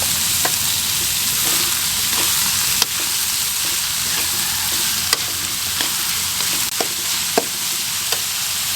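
Chopped vegetables stir-frying in hot oil: a steady sizzle, with a stirring utensil clicking against the pan about seven times.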